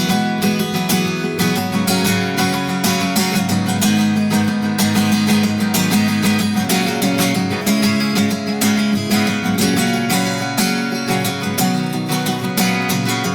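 Instrumental break in a song: acoustic guitar strummed in a steady rhythm, with other sustained instrument notes underneath.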